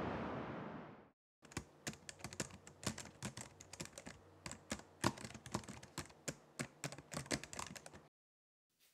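A steady rush of noise fades out within the first second. After a short gap comes a run of rapid, irregular key clicks, typing on a keyboard, which stops abruptly near the end.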